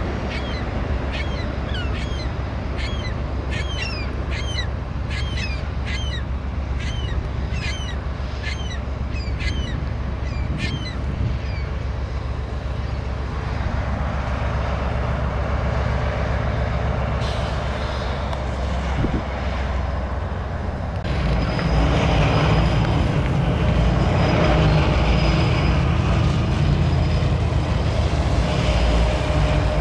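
Low rumble of a passing freight train, with short, high bird calls about twice a second over the first ten seconds or so. About two-thirds of the way in, a louder, steady CSX diesel locomotive engine sound takes over.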